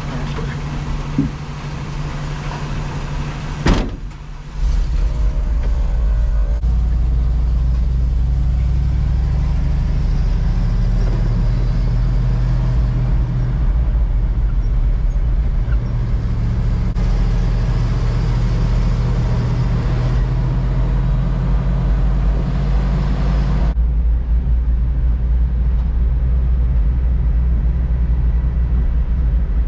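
A vehicle door shuts with a single knock about four seconds in; then a truck's engine and running noise go on steadily as a loud low rumble, as heard from inside the cab.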